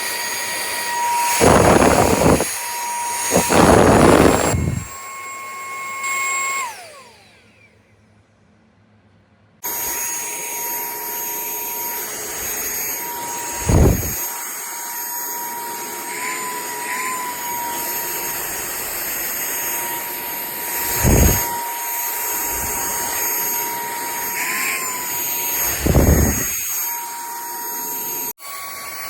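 Small handheld cordless vacuum and air blower running with a steady high motor whine, broken by several short, loud rushes of air. About seven seconds in it is switched off and winds down in pitch. After a few seconds of near silence it starts again abruptly and runs steadily.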